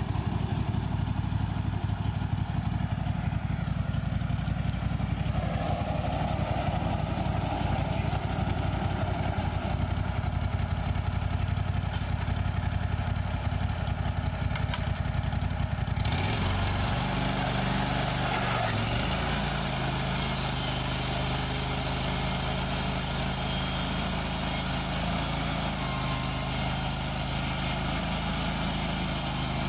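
Wood-Mizer portable band sawmill's engine running steadily; about halfway through the sound changes abruptly to a smoother, steadier hum.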